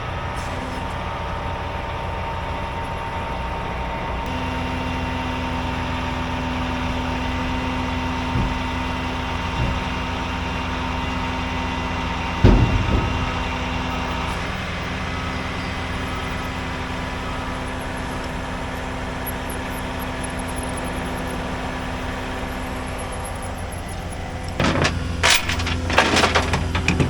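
Heavy truck engine running steadily, with a single sharp knock about halfway through and a run of metallic clanks and knocks near the end.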